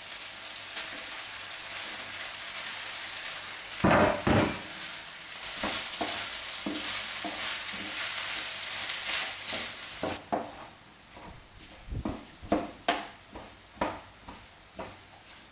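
Steak mince sizzling in a frying pan, with a loud thud about four seconds in as diced onion is tipped in from a chopping board. Around ten seconds in the sizzle dies down, and a wooden spoon knocks and scrapes against the pan in a string of short strokes as the mince and onion are stirred.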